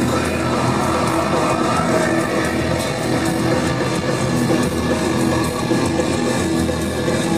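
Rock music with guitars, playing steadily throughout.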